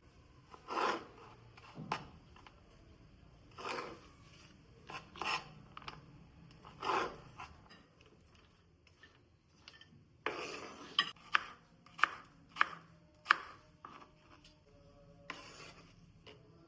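Kitchen food-preparation sounds: several separate rasping strokes, then a quick run of about five sharp knocks, then one more rasp near the end.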